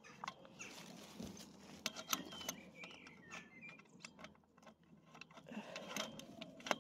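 Faint, scattered clicks, taps and scraping of rusty metal trampoline frame parts being worked apart by hand, with a brief thin squeak a couple of seconds in.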